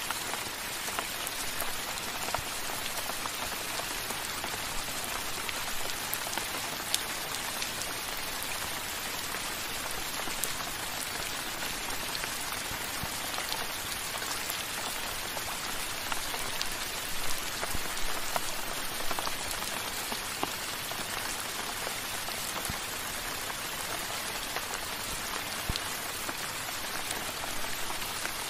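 Steady drizzle falling on wet stone paving, a dense even patter of small drops, with a few louder drops just past the middle.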